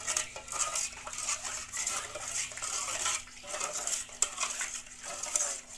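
A spoon stirring a thin liquid batter of coconut milk, sugar, salt and egg in a metal pot, scraping and sloshing in steady repeated strokes as it is mixed until smooth.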